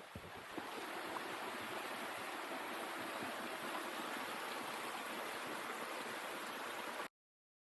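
Steady rushing water, as from a waterfall or fast stream, an even hiss-like roar that cuts off suddenly near the end.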